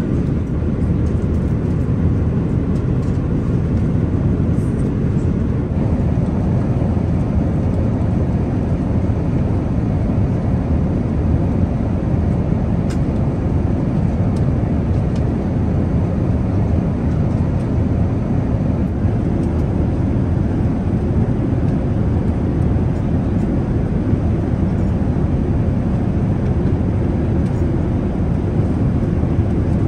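Steady low rumble inside the cabin of an Airbus A380 in cruise flight: engine and airflow noise.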